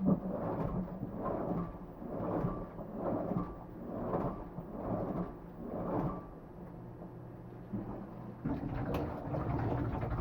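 Hitachi BW-D9LV washing machine agitating: its drum or pulsator reverses back and forth, swishing water and laundry about once a second, with a faint steady whine behind it. Near the end it changes to a steadier run with a low hum. The owner reports that the whine started suddenly and is new.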